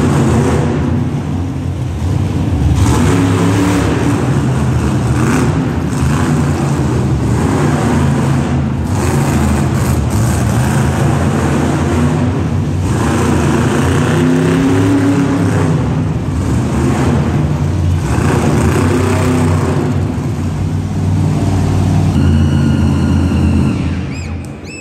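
Monster truck engine revving hard, its pitch rising and falling repeatedly with bursts of throttle.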